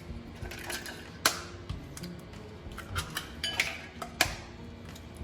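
Eggs being cracked on the rim of a bowl: two sharp taps about three seconds apart, with smaller clicks of shell in between.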